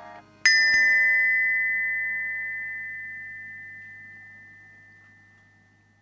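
A single bright, bell-like strike about half a second in, ringing out with a clear high tone that slowly decays over about five seconds. A faint steady low hum sits underneath, and the tail of earlier plucked-string music is still audible just before the strike.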